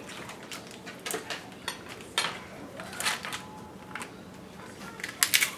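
Foil cream cheese wrappers crinkling and packages being handled on a kitchen counter: a scatter of short, sharp crackles and clicks, with a quick cluster of them near the end.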